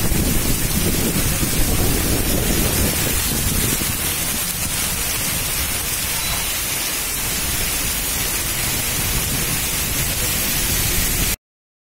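Heavy monsoon rain pouring steadily, an even hiss, with gusts of wind buffeting the phone's microphone as a fluctuating low rumble, strongest in the first few seconds. The sound cuts off abruptly near the end.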